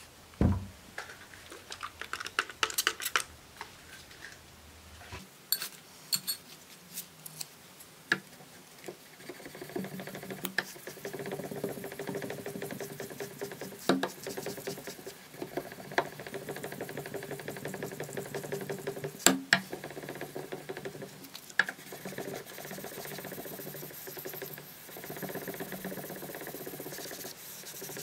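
A steel knife blade being hand-sanded with 5000-grit sandpaper on a flat backing bar. A few clicks and knocks come first as the bar is placed, then steady back-and-forth rubbing from about ten seconds in.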